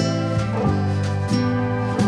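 Instrumental background music with guitar, its notes changing every half second or so.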